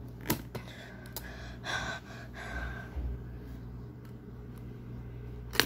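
Metal catch latches on an aluminium-framed carrying case clicking as they are worked open: a sharp click just after the start and another, the loudest, near the end, with a few lighter ticks and soft hissy noises between.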